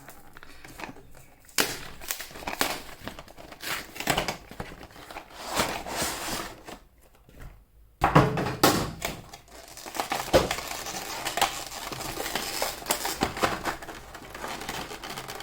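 Packaging being unwrapped and opened by hand: irregular crinkling, rustling and tearing of a trading-card collection box's wrapping. It pauses briefly about halfway through, then comes back louder.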